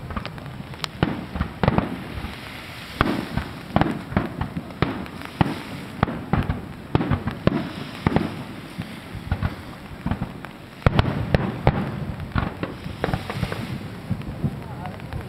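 Fireworks exploding overhead: a continuous barrage of sharp cracks and booms with a low rolling rumble, thickest about eleven seconds in.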